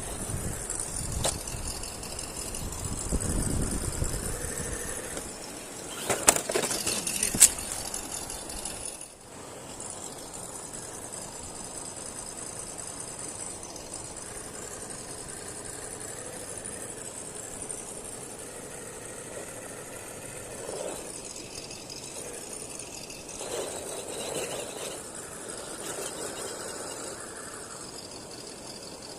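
Electric motor and gear drivetrain of an RGT EX86010-CJ 1:10 RC rock crawler running as it drives over rough ground, with a few sharp knocks and clicks about six to seven seconds in.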